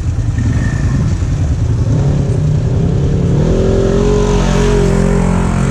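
Off-road vehicle engines: an ATV idling as another ATV and then a sport side-by-side UTV drive slowly past close by. About three and a half seconds in, the side-by-side's engine gets louder as it passes.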